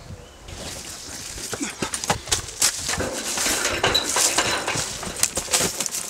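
Dry leaves, twigs and brush rustling and crackling, with many irregular clicks and knocks, starting about half a second in and growing louder.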